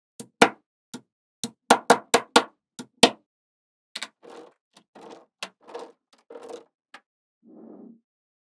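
Small magnet balls clicking and snapping together as they are placed: a quick run of about a dozen sharp clicks in the first three seconds, then softer clicks and rattles, and a brief soft rustle near the end.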